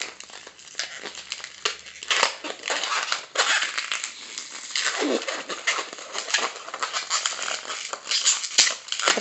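Inflated latex 260 twisting balloon being squeezed and twisted by hand into tiny pinch-twist bubbles: rubbery rubbing and crinkling of the latex. Two short balloon squeaks slide in pitch, one falling about five seconds in and one rising at the end.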